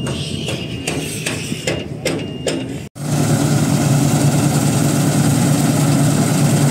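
Farm machinery running: an engine with regular clicking and a few short high beeps. After an abrupt break almost three seconds in, a louder, steady engine drone follows.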